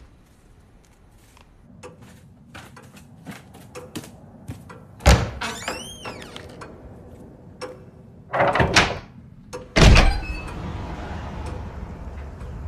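Scattered small clicks and knocks, then a loud thump about five seconds in, followed by a short squeal that rises and falls. A rush of noise and a second loud thump come near the end.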